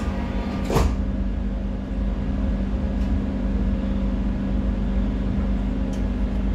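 Steady hum and low rumble of a Doha Metro Red Line train's interior, with a sharp clunk about a second in as the sliding doors shut, and a couple of faint clicks later as the train starts to move off.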